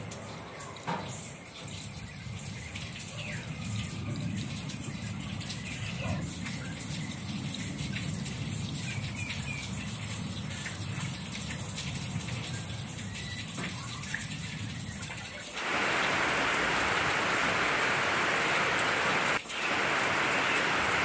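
Rain falling, with a few faint bird chirps. About fifteen seconds in it changes abruptly to a louder, steady hiss of heavy rain.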